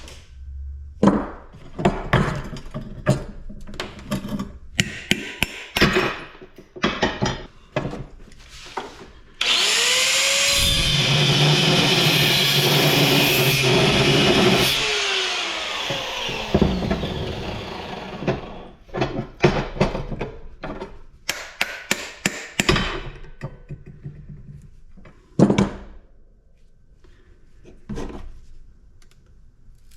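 Metal parts being knocked and handled during the teardown of a PTAC air conditioner for scrap. About ten seconds in, a power tool runs steadily for about five seconds, then winds down and fades.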